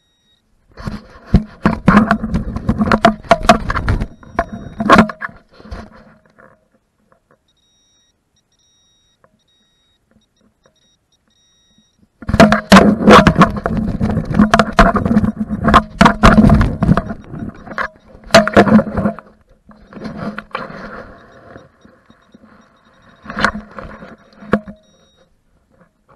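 Dry soil being dug and handled in a fresh hole: scraping, crunching and sharp knocks. There are two long bouts, with a quiet gap of several seconds between them and a few weaker bursts near the end.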